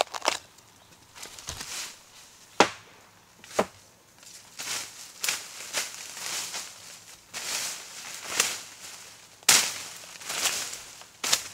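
Footsteps crunching through dry bamboo leaf litter while climbing a slope, a step about every second from the middle on. Two sharp knocks come before the walking starts.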